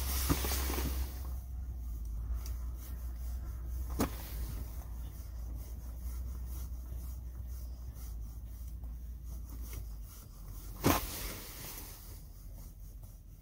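Handling noise from fishing gear and winter clothing: rustling with a few sharp knocks, the loudest one about eleven seconds in, over a low steady hum that stops about ten seconds in.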